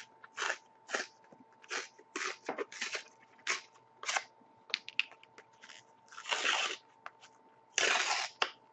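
A trading card being torn apart by hand to get at the card inside: a series of short, crackling rips of thin cardboard, with two longer tears about six and eight seconds in.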